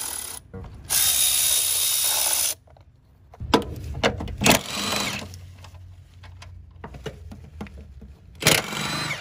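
Cordless power tools taking bolts off an engine: a cordless ratchet spins a bolt for about a second and a half with a thin high whine, then a cordless impact wrench hammers in a few short bursts. Near the end there is one more short run.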